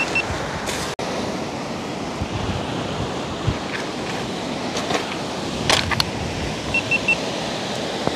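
Surf washing onto a pebble beach, a steady rushing noise. A few sharp clicks come about six seconds in, and three short high beeps near the end.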